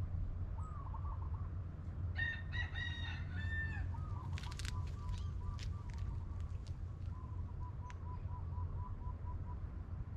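A rooster crows once, about two seconds in, in several short segments. Birds call with a run of short repeated notes through the middle, over a steady low rumble.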